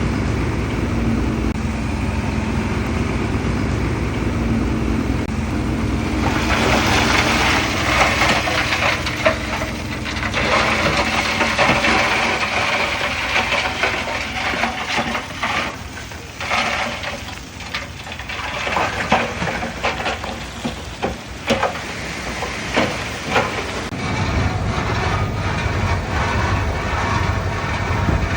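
Heavy earthmoving machinery at work: a diesel engine runs steadily, then from about six seconds in comes a long spell of rushing, rattling noise with many knocks. Near the end it eases off and the low engine sound comes back.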